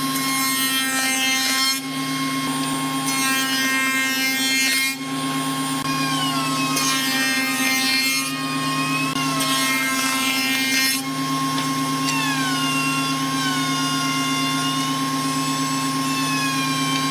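A table-mounted woodworking machine running with a steady hum while its spinning cutter shapes hardwood strips fed past it one after another. During each cut the machine whines and its pitch sags under the load, with short dips between four or five passes.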